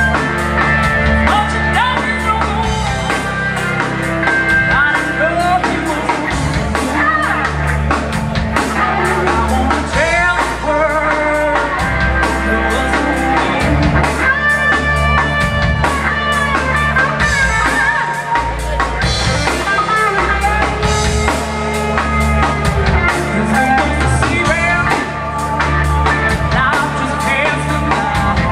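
Live blues-rock band playing: a woman singing lead over electric guitar, electric bass and a drum kit keeping a steady beat.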